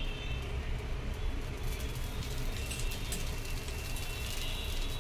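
Oil sizzling under a dosa on a hot tawa after being drizzled around it, with small crackles from about two seconds in over a steady low rumble.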